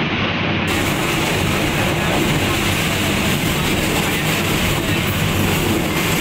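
Passenger train running, a loud steady noise with no breaks.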